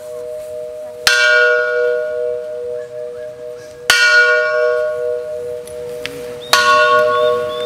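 A hanging metal cylinder used as a bell, struck with a stick and tolled slowly. It rings three times, roughly every two and a half to three seconds, and each stroke rings on and fades over a steady humming tone.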